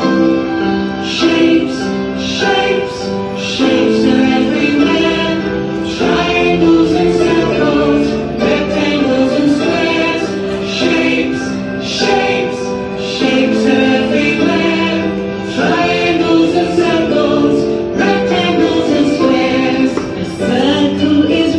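Music with singing: the opening of a recorded children's song about shapes.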